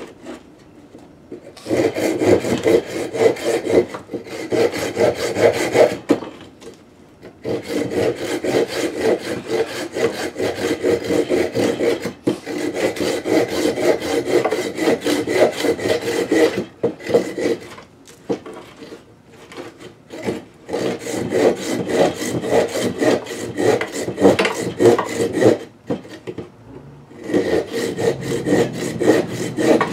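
Silky hand saw cutting through a small piece of wood with fast back-and-forth strokes, in several bouts with short pauses between them.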